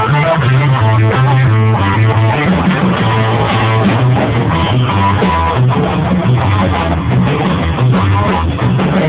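Live rock band playing loud, with electric guitar and bass guitar running a repeating riff.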